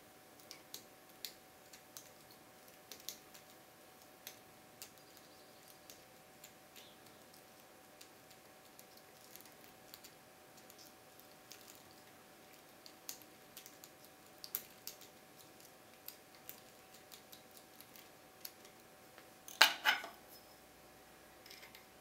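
Lock pick and tension wrench working in the keyway of a Keso 2000 pin-tumbler cylinder: scattered small metallic clicks and ticks, with a louder scraping rattle about two seconds before the end.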